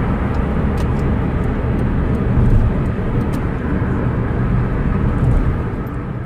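Car driving, heard from inside the cabin: steady engine and road rumble.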